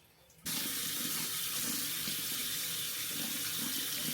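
Bathroom sink faucet turned on about half a second in, then water running steadily into the basin, splashing while a face is washed under it.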